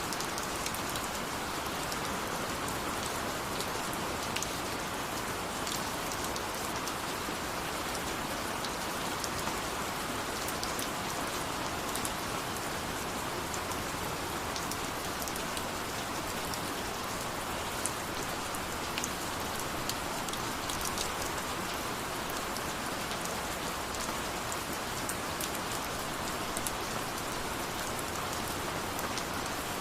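Steady rain with individual drops pattering now and then.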